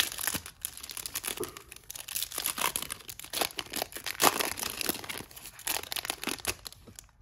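Foil-lined plastic wrapper of a Topps Chrome trading card pack being torn open and crinkled by hand: an irregular run of sharp crackles and rips.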